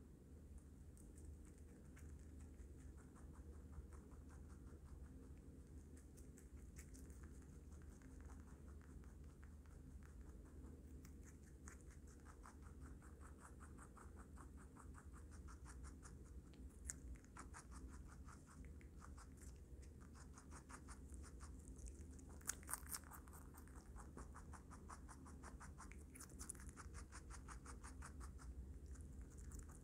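A baby rabbit chewing lettuce and carrot close to a microphone: quick, soft crunching clicks in bursts with short pauses.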